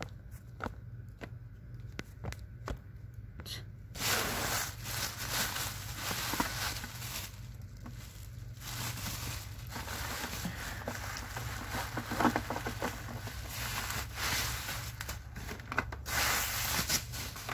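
Plastic bubble wrap being handled and pulled apart: scattered crackles at first, then dense crinkling and rustling from about four seconds in, with a short lull around the middle.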